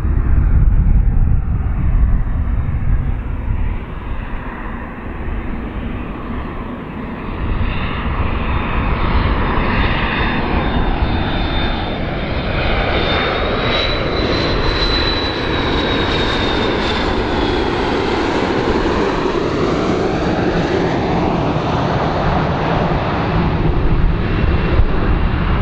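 A McDonnell Douglas MD-80-series airliner's two rear-mounted jet engines on landing approach: a steady jet rumble with a high whine that rises slightly and fades just past the middle, and a swirling, sweeping quality as the aircraft draws near.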